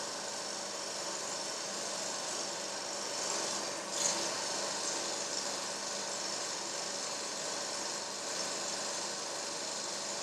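Steady mechanical whirring hum over a hiss, with a short rising swell about four seconds in.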